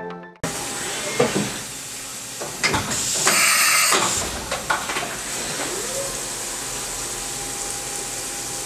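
CNC vertical milling machine between cuts: a few sharp clunks and a loud, brief hiss about three seconds in, then the spindle spinning with a steady whine that rises once near the middle, with flood coolant spraying onto the workpiece.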